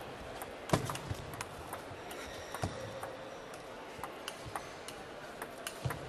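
Table tennis rally: the celluloid ball clicking back and forth off the paddles and the table, a quick, irregular run of sharp ticks over the faint hush of the hall.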